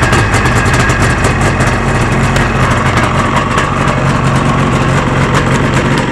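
1990 Polaris Sport 440 snowmobile's fan-cooled twin-carb two-stroke twin running steadily through an aftermarket AAEN exhaust, just after starting without choke.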